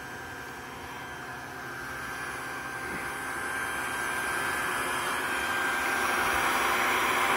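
Steady rushing hiss of the homemade wood gasifier system running, growing gradually louder.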